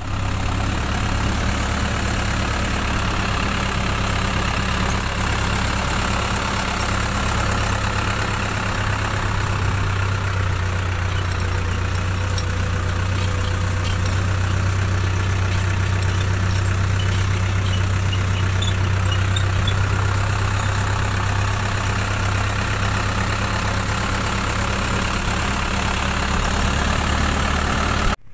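Farm vehicle engine running steadily with an unchanging low drone, cutting off suddenly near the end.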